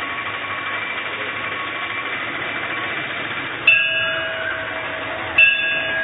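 Temple bell struck twice by a goat, the strikes in the second half about a second and a half apart, each ringing on in several metallic tones and fading. A steady background hiss runs beneath.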